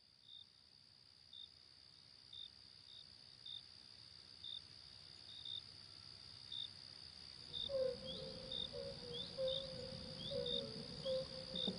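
Faint insect chorus: a steady high trill with short chirps about once a second. A little past halfway, a lower wavering call and a few downward-sliding chirps join in.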